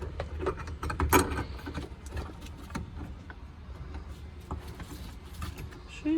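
Scattered light clicks and knocks of bolts and interior parts being handled while the car's carpet is refitted, with the loudest clatter about a second in, over a steady low hum.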